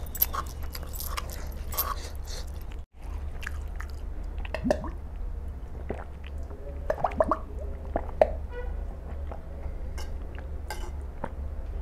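A man chewing a mouthful of chicken biryani with wet, squelching mouth clicks, then drinking water from a plastic bottle in a few gulps in the second half.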